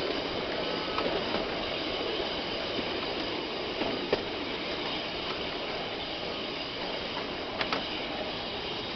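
Heritage railway carriage rolling along straight track, its wheels on the rails making a steady running noise. A few sharp clicks stand out about one second, four seconds and seven and a half seconds in.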